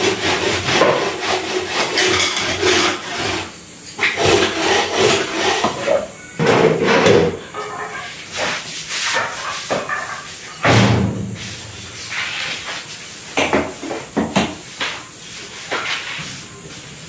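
A window being scrubbed by hand: irregular rubbing and scraping strokes, with a heavier knock about eleven seconds in.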